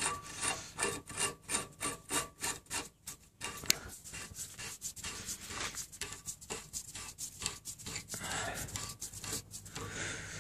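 Hand twisting the threaded lower nut of a Detroit Diesel Series 60 electronic unit injector on its body: a run of short rasping rubs, about three a second, with one sharp click a little under four seconds in.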